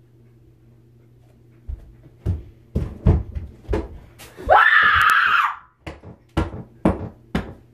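A run of sharp thumps, about two a second, starting a couple of seconds in, as a pillow on a stool is beaten. Halfway through, a loud scream about a second long rises in pitch and then holds, the loudest sound here.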